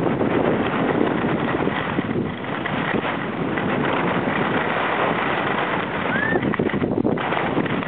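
Steady rush of wind on the microphone while skiing downhill, mixed with skis scraping over packed snow.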